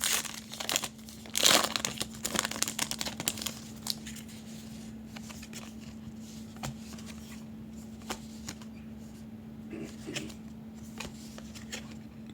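Crinkling and tearing of a trading card pack wrapper being opened, busiest in the first few seconds, loudest about a second and a half in, then only scattered soft ticks and rustles. A faint steady hum sits underneath.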